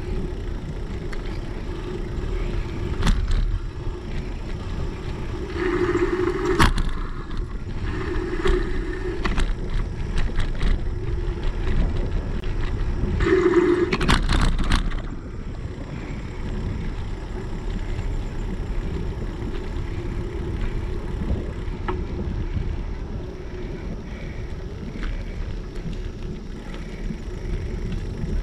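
Bicycle riding on a paved path, heard from a GoPro mounted on the bike: steady tyre rumble and wind on the microphone, with scattered rattling clicks. Three short louder whines come in the first half.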